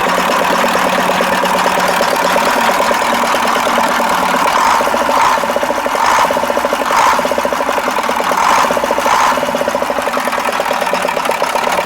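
KAMAZ V8 diesel truck engine idling steadily after a rebuild, with a handful of short louder bursts through the middle. The deep knock it had before is gone; at most a slight metallic ticking remains.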